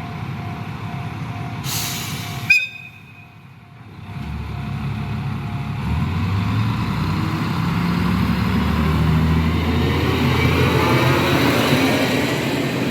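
Diesel railcar on the Nagaragawa Railway gathering speed, its running sound building with a rising whine. A sharp knock comes about two and a half seconds in, followed by a short quieter stretch.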